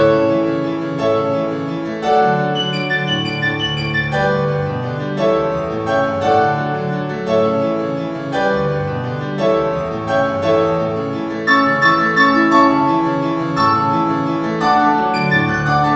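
A waltz played on piano, melody and chords sounding together in a steady flow of notes.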